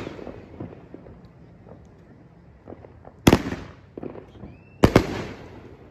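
Aerial firework shells bursting overhead: two sharp bangs about a second and a half apart, the first a little over three seconds in, each trailing off in an echo, with faint crackling between.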